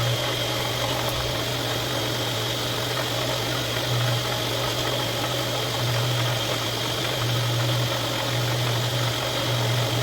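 A motor running steadily: a low drone with a thin, even whine above it, unchanging throughout.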